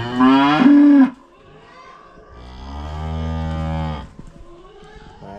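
Dairy cows mooing at feeding time, waiting to be fed. A loud call rising in pitch cuts off about a second in, and a second long, steady moo follows from about two and a half to four seconds.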